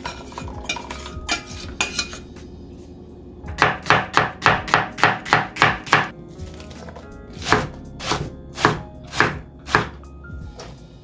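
Kitchen knife chopping on a cutting board: a few scattered cuts, then a quick run of about a dozen at roughly five a second, then five slower single cuts about half a second apart.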